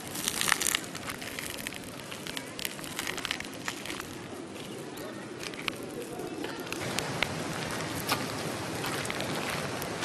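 Footsteps crunching and crackling on dry ground during a walk, with many scattered sharp crackles over a steady rustle. The densest, loudest crackling comes in the first second.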